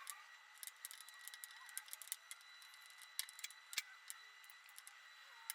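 Faint, irregular small clicks and taps, with two sharper knocks a little past the middle, over a faint steady high tone.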